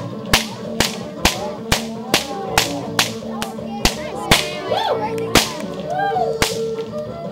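Bullwhip cracking in a steady rhythm, about twice a second, the cracks spacing out to about once a second in the second half, over background music.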